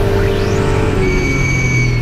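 The turbocharged 1991 Acura NSX hill-climb race car's engine running under load, heard from inside the cockpit. Its pitch holds fairly steady, with a rising whine in the first half-second and thin high whistling tones in the second half.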